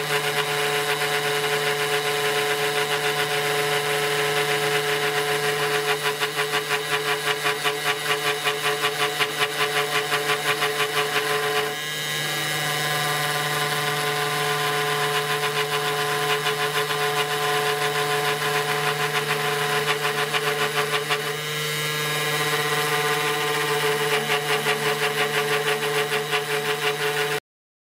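Mini CNC spindle driving a solid carbide single-flute bit through aluminium plate on a shallow pass: a steady pitched running sound with a fast, even pulsing of the cutting edge, going smoothly. The sound dips briefly about twelve seconds in and again about twenty-one seconds in, where the path turns, and cuts off just before the end.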